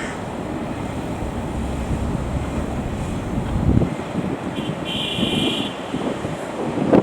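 Excavator engine running, with wind buffeting the microphone. The low rumble cuts off suddenly about four seconds in, and a brief high-pitched squeal follows about a second later.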